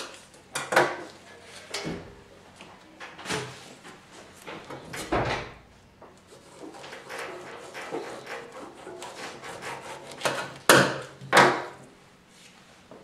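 A kitchen knife cutting the top and bottom off a whole pineapple, with scraping cuts through the tough rind and irregular knocks of the fruit and blade on the worktable. Two sharp knocks near the end are the loudest.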